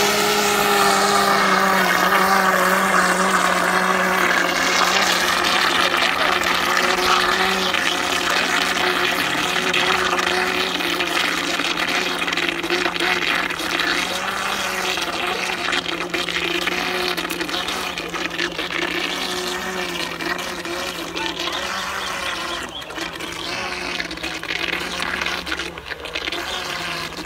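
Remote-control bait boat's electric motor humming steadily, with its propeller churning water, as it tows a small fishing net out across the lake; the sound slowly grows fainter as the boat moves away.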